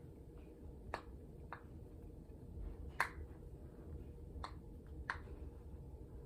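Faint, scattered clicks and taps of hands working a small plastic gadget while trying to unscrew it: about five sharp clicks, the loudest about three seconds in.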